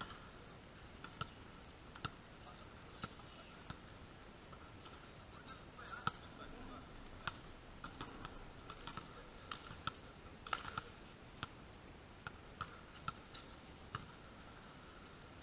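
Quiet court ambience with scattered sharp knocks at irregular intervals, among them a volleyball bounced on the concrete court, and a few short faint calls in the background.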